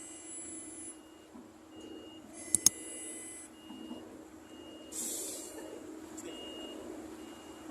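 A short high-pitched electronic beep repeating about one and a half times a second over a steady hum, with two sharp clicks about two and a half seconds in and a brief hiss about halfway through.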